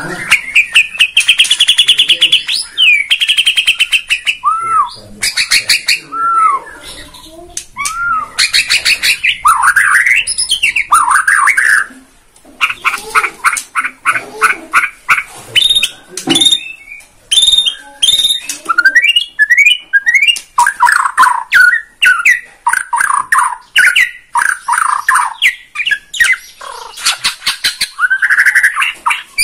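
Bornean white-rumped shama (murai batu) singing loudly and without pause: a varied stream of clear arched whistles, fast rattling trills and quick chattering phrases. Mixed through it is the mimicked song repertoire ('isian') that these birds are kept to show off.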